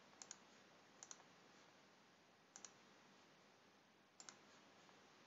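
Computer mouse clicking four times, a second or more apart, each a quick double click of button press and release, over faint hiss.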